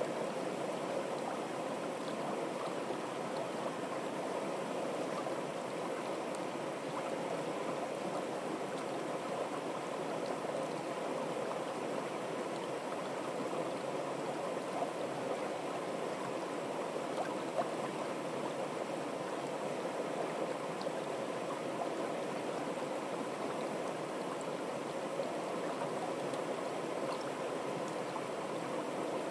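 Fast-flowing river water rushing and burbling over rocks, a steady, even sound.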